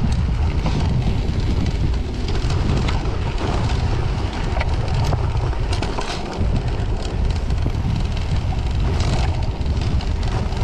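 Steady low wind rumble on the microphone and the noise of a cyclocross bike rolling over packed snow on Dune front and Grifo rear tyres, with scattered small clicks and rattles from the bike.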